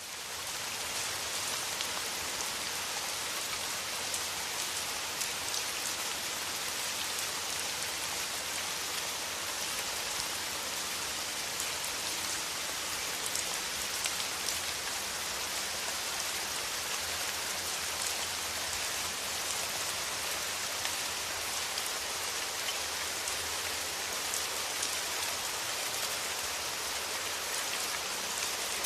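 Steady rain falling, an even hiss with single drops striking now and then.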